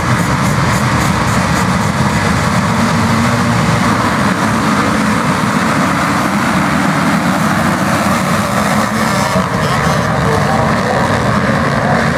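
A pack of motocross bikes at full throttle together off a race start, their engines merging into one loud, dense, unbroken noise.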